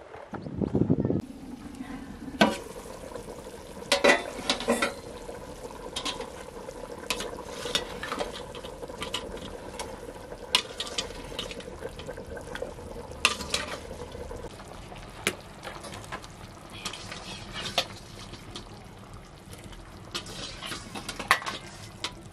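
Metal ladle clinking and knocking against a steel bowl and cooking pot as potato chunks are ladled into a stew cooking over a wood fire, with a steady low sizzle beneath.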